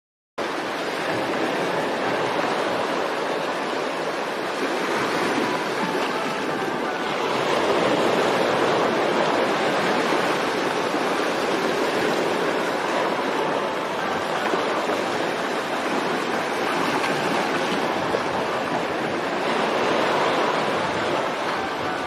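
Rushing water: a steady, even noise that cuts in abruptly and swells and eases gently twice.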